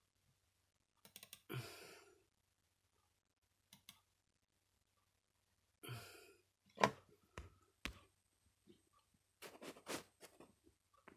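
Two breathy sighs, about one and a half and six seconds in, and scattered clicks of a computer mouse, several close together near the end.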